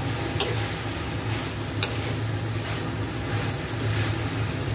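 Vegetables sizzling in a wok as a metal ladle stirs them, with two sharp clinks of the ladle against the pan, about half a second and two seconds in. A steady low hum runs underneath.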